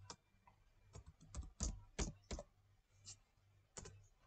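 Computer keyboard typing: about a dozen separate keystrokes, bunched between one and two and a half seconds in, as a word is deleted and retyped in capitals.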